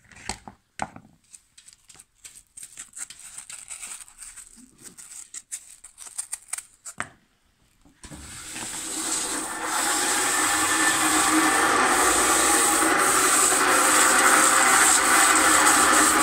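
Plastic sanding backing pads clattering and knocking as they are handled, then about halfway through a machine starts and runs with a loud, steady, even noise: the motor-driven rotary table that carries the pads around.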